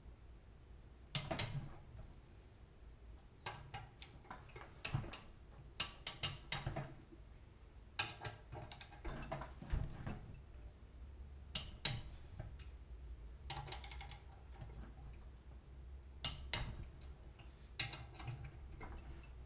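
Click-type torque wrench ratcheting in short runs of rapid clicks, a cluster every second or two, as the crankcase cover bolts of a Honda-clone engine are tightened.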